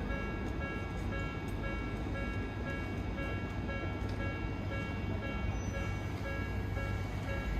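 Japanese railway level-crossing warning bell ringing: an electronic clanging alarm repeating at a rapid, even pace over a steady low rumble.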